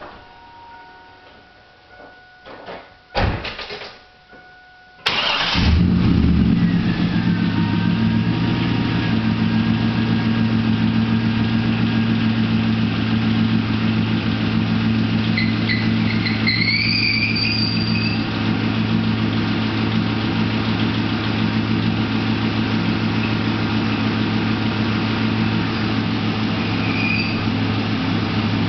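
A steady warning chime and a few clicks, then the LS1 V8 is started about five seconds in and settles into a steady idle. About eleven seconds later a short high screech rises in pitch over the idle, the clutch-related screech, and a brief squeak follows near the end.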